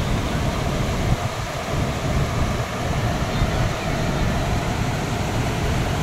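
Steady rush of a waterfall and the rapids above it, with wind buffeting the microphone.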